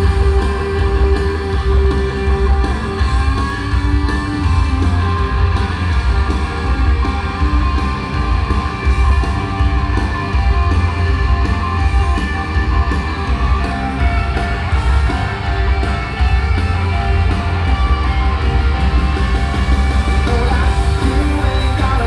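Live rock band playing loudly, electric guitar over a heavy, booming low end.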